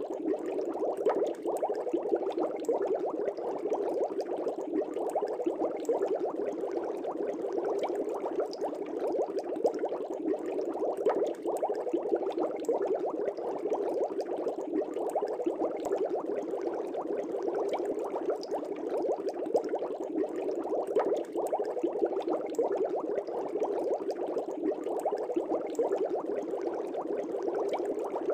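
Aquarium water bubbling steadily: a dense, continuous stream of small bubbles rising and popping in a fish tank.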